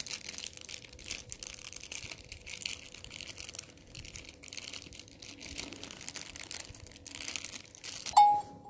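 Crinkling, crackly handling noise as the phone is held. About 8 s in comes a short, loud, steady tone as the Nokia 1 powers on.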